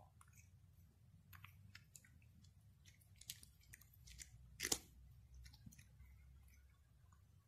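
Egyptian Mau cat chewing dry kibble, faint irregular crunches, the loudest a little past halfway through.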